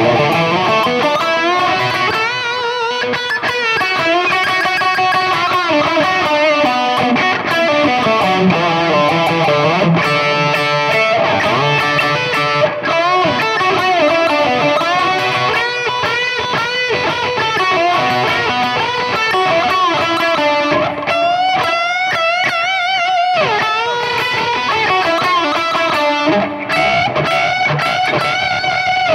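Electric guitar lead solo on a Stratocaster-style guitar, played through a Valeton GP-200 multi-effects unit's lead patch: a singing melodic line with bends and wide vibrato, with a brief pause about 23 seconds in.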